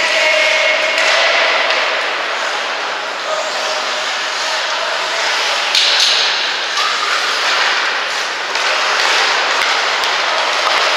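Ice hockey rink sound during play: skates scraping and hissing on the ice, with sticks and the puck clacking. A sharper crack stands out about six seconds in.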